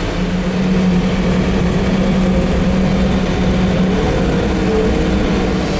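Farm machine's engine running steadily, with a brief rise and fall in pitch about four seconds in.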